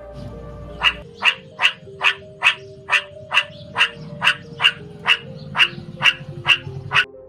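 Meerkats giving a run of short, sharp barking calls, evenly repeated about two or three times a second.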